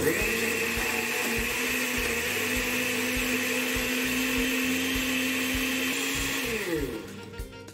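Electric countertop blender running steadily, puréeing chiles and garlic into a red liquid sauce. A little over six seconds in it is switched off and the motor's pitch falls as it winds down.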